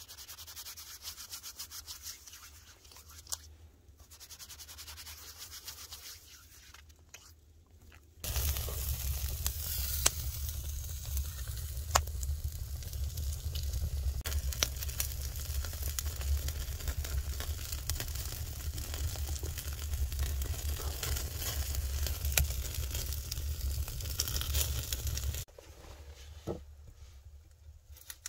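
Hands scrubbing and rubbing in snow; then, about eight seconds in, a wood fire in a stone fireplace burning with a low rumble and occasional sharp pops. The fire sound cuts off a few seconds before the end, leaving a few light knocks.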